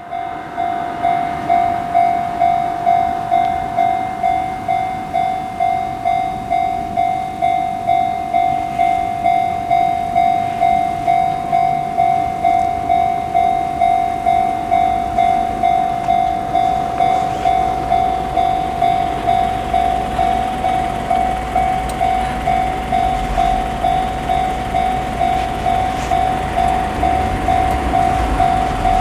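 Japanese railway level-crossing alarm ringing its repeated 'kan-kan' at about two strokes a second. From about halfway a train's low rumble builds underneath and is strongest near the end.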